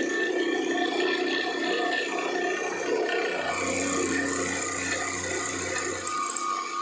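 A 400 W brushless CNC spindle drives an end mill through mild steel, making a steady metal-cutting noise that eases slightly near the end.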